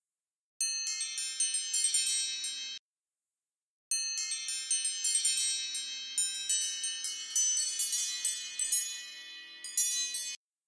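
Tinkling chimes: many bright, high bell-like notes struck in quick overlapping succession, like a wind chime. The sound comes in two stretches, a short one and then a longer one, and each starts and cuts off abruptly.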